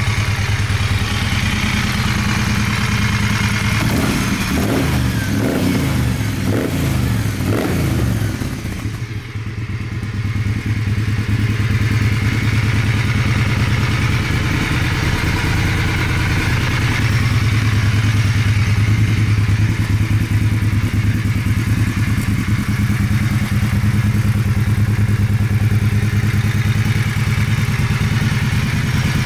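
Moto Guzzi Griso 8V's transverse V-twin engine idling steadily. Between about four and eight seconds in, the throttle is blipped several times, the revs rising and falling quickly.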